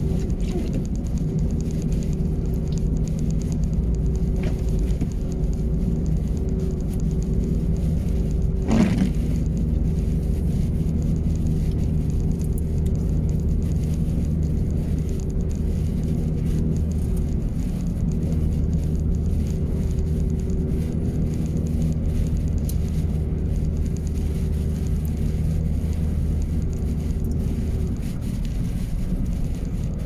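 Vehicle engine and road noise heard from inside the cab while driving on a snowy highway: a steady low rumble with a steady hum over it. About nine seconds in there is one short, sharp sound that falls in pitch.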